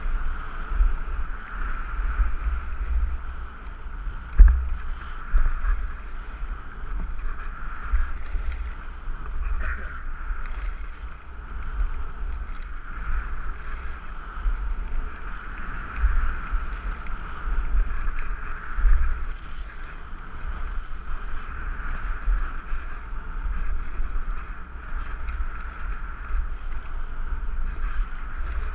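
Wind buffeting a head-mounted GoPro microphone during a downhill ski run, in gusty low rumbles, with the skis hissing and scraping over packed groomed snow, swelling and fading with each turn.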